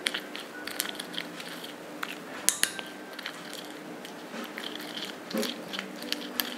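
Spoon stirring a thick paste of curd and wheat flour in a small bowl: irregular clicks of the spoon against the bowl and wet, sticky squelches of the paste.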